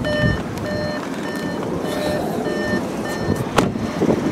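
Audi Q5's cabin warning chime beeping about twice a second, most likely prompted by the open driver's door, and stopping about three seconds in. A single sharp knock follows near the end.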